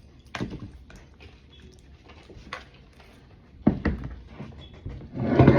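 Small clicks and taps of food being handled, then a louder rustling noise about five seconds in.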